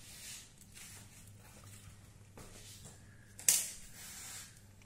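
Quiet handling noises over a low steady hum: a sharp click about three and a half seconds in, followed by about a second of scratchy hiss.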